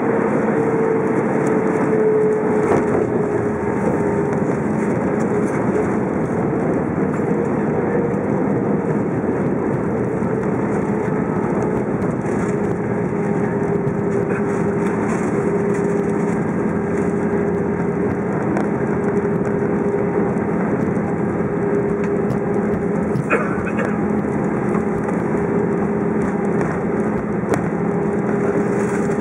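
Cabin noise of an Airbus A319 rolling on the ground after landing: a steady engine and rolling rumble with a whining tone that falls slightly in the first few seconds and then holds.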